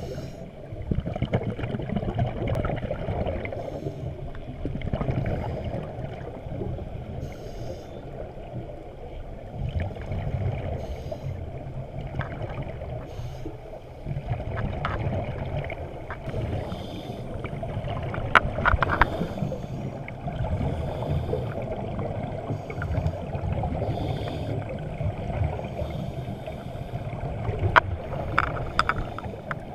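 Underwater sound through a camera housing: a steady muffled rumble, with bursts of bubbling every few seconds from scuba divers exhaling through their regulators.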